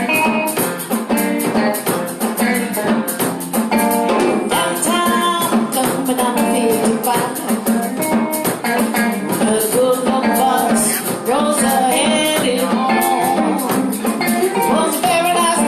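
Live band playing the instrumental opening of a blues-rock song: electric guitar over bass and a drum kit, with a steady beat.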